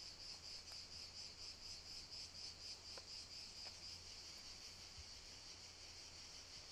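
Faint, rapidly pulsing chirping of insects, about five chirps a second, growing softer and more even after about four seconds.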